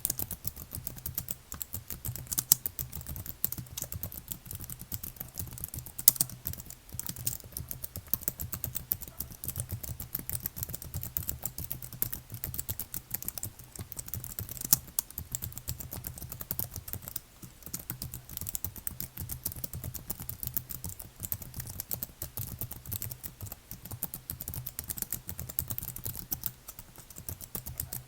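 Fast, continuous typing on a computer keyboard: a dense, uneven run of key clicks, with a few louder strokes such as about two and a half seconds in and around six seconds.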